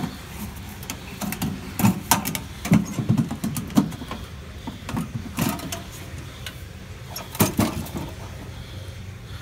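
A metal box being handled and opened: scattered clanks, knocks and scrapes of its metal lid and body, loudest about two to four seconds in and again near seven and a half seconds.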